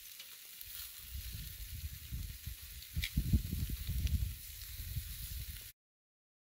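Chicken pieces sizzling on a steel fire-pit grill plate over charcoal, a steady hiss. A couple of sharp clicks come through, the louder one about three seconds in. From about a second in, a louder low buffeting rumble lies over it, and everything cuts off suddenly near the end.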